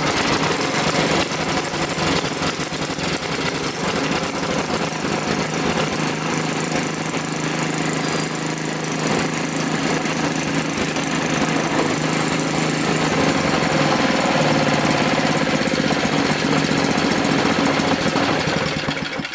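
Old Tecumseh 5 hp single-cylinder snowblower engine running steadily, cold-started on choke and running again after about 15 years unstarted, its gummed carburetor cleaned without disassembly. It stops at the very end.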